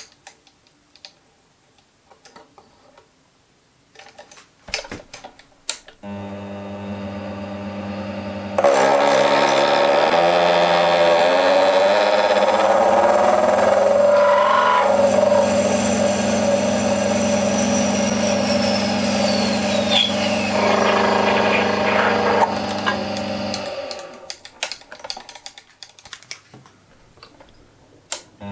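Small bench lathe: a few clicks, then the motor starts with a steady hum. For about fourteen seconds the tool cuts into a brass workpiece, loud and hissing with shifting ringing tones and a falling whistle near the end of the cut. The motor is then switched off, followed by more clicks.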